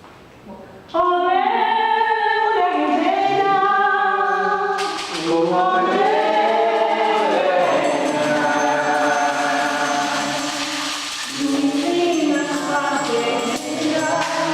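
A small choir singing together in unison, coming in about a second in after a short quiet. About five seconds in, a hissing, shaker-like percussion from handheld sound objects joins the voices.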